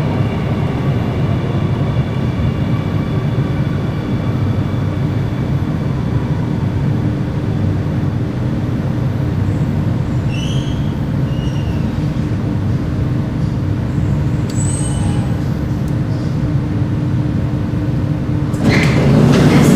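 Singapore MRT Circle Line train running, heard from inside the carriage as it pulls into a station: a steady rumble with a steady motor hum under it and a few faint high squeaks. The noise swells louder near the end.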